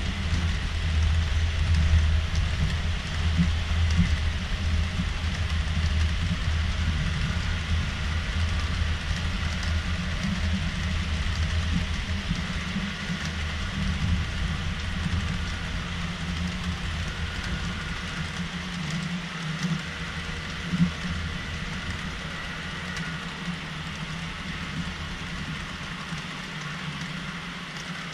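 HO-scale model freight cars rolling past on the layout track, a continuous rumbling clatter of small wheels on rails that grows gradually quieter through the second half, with one sharper click about two-thirds of the way through.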